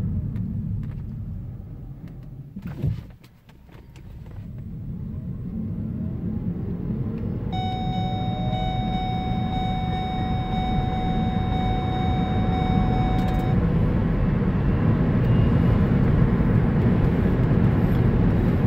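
Cabin sound of a 2012 Ford Focus Electric pulling away hard from a stop: the drivetrain is nearly silent, so what is heard is tyre and road noise rumbling louder and louder as the car gathers speed. A knock comes just before the quietest moment a few seconds in, and a steady high tone sounds for about six seconds in the middle.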